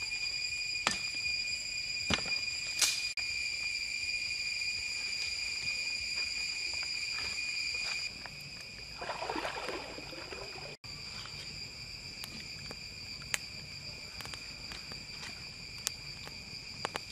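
Steady high-pitched insect chorus in the forest, with a few sharp cracks from the wood campfire and its sticks and a brief rustle about nine seconds in.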